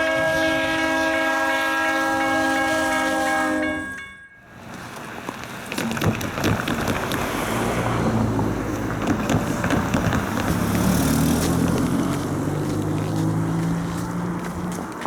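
CN freight train's multi-chime air horn sounding one long blast that cuts off about four seconds in. Then the diesel locomotives and cars pass, engines running, with a rush of noise and a rapid clatter of wheel clicks over the rails and crossing.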